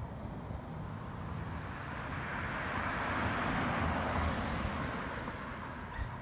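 A passing vehicle, a broad hiss of tyre and road noise that swells over a couple of seconds and fades away. A brief thump comes near the end.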